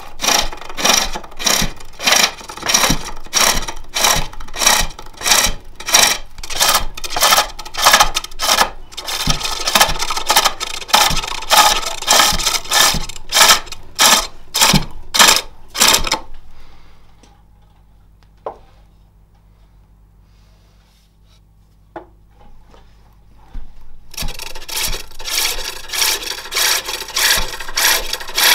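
Spring-pole lathe turning a jacaranda plate: the turning tool shaves the spinning wood in even, repeated cutting strokes, one with each treadle downstroke. The cutting stops about halfway through, leaving a quiet stretch with a couple of faint knocks, then starts again near the end.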